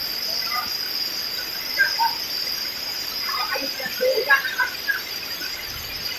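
Steady, high-pitched drone of an insect chorus, with scattered short calls over it, thickest around three to four and a half seconds in.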